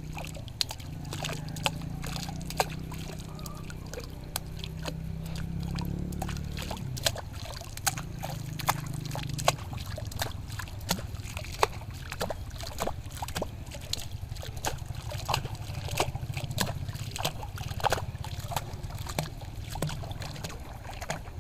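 Flowing water trickling and splashing, with many irregular sharp drips and plinks over a low steady rumble.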